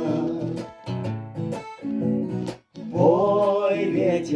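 Acoustic guitar strummed as accompaniment to a song, dropping out briefly about two and a half seconds in. Voices come in singing near the end.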